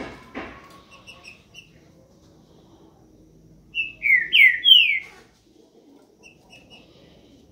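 Caged green-winged saltator (trinca-ferro) singing: a few soft chips, then about four seconds in a loud, short phrase of three or four downward-sliding whistled notes, in the song type breeders call 'boiadeiro'. Faint chips follow.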